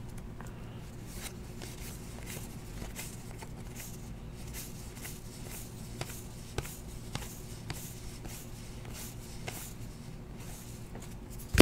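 Trading cards being handled by hand: faint, scattered clicks and slides of card stock over a low steady hum, with a sharper knock near the end.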